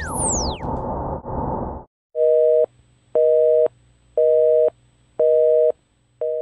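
Electronic sound with falling sweeps and a rough, noisy texture cuts off about two seconds in. Then a telephone busy signal: a steady two-tone beep, half a second on and half a second off, five times.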